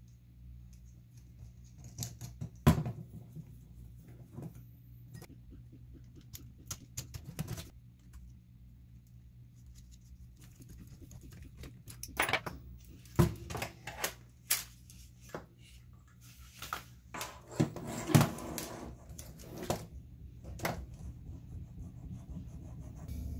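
Scattered clicks, taps and light knocks of plastic RC crawler suspension links, axle and small screws being handled and fitted together by hand, on an Element RC Gatekeeper kit chassis. The sharpest knocks come about three seconds in and again near eighteen seconds.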